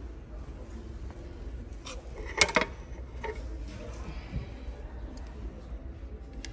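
IKEA HEMLAGAD non-stick frying pans knocking against each other and their metal display hooks as one is handled and pulled off the rack, with a sharp double clack about two and a half seconds in and a few lighter clicks around it.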